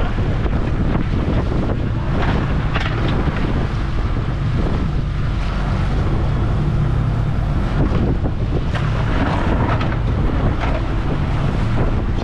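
Twin Yamaha 200 outboard motors running steadily with the boat under way, a constant low hum under the rush of the wake, and heavy wind buffeting the microphone.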